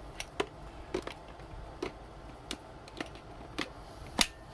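Plastic parts of a Black & Decker cordless hand vacuum being handled and fitted together: a run of irregular sharp clicks and taps, the loudest near the end.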